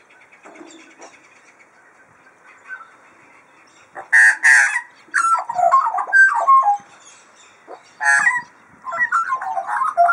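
Magpie calling: faint chatter at first, then about four seconds in a loud harsh call followed by warbling, gliding, modem-like notes, another harsh call about eight seconds in, and more warbling near the end.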